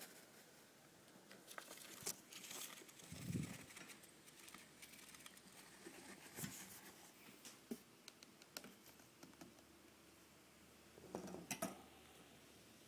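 Faint crinkling and rustling of paper-towel bedding as a hamster moves about in its nest, with a few scattered light clicks.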